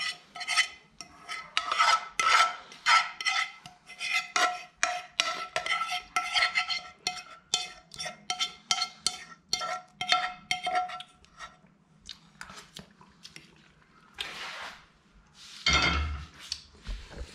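A metal fork clinking and scraping rapidly against metal cookware, leaving a ringing note, as spaghetti is stirred into its sauce. The clinks thin out after about eleven seconds, then come a brief brushing sound and a heavier knock or handling sound near the end.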